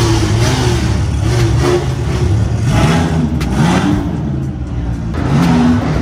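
Sports car engines revving and accelerating away inside a concrete parking garage. Several rising and falling revs come in the middle over a steady engine hum.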